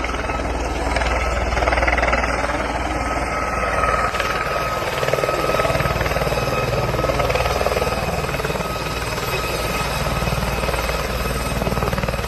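Helicopter running steadily at close range, its rotor chopping continuously, with a steady high tone over it.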